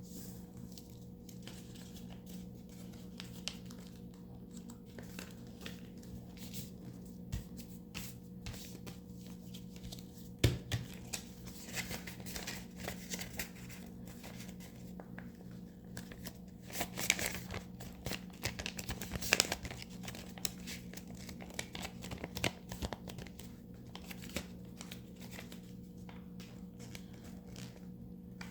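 A sheet of paper handled and folded by hand: irregular crinkling and rustling with sharp crease snaps, busiest and loudest in the middle stretch. A steady low electrical hum runs underneath.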